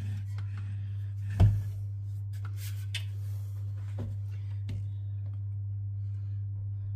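Stainless steel Thermomix mixing bowl knocking and scraping as it is lifted and tipped over a bundt pan to pour out cake batter, with one loud knock about a second and a half in and two lighter knocks later. A steady low hum runs underneath.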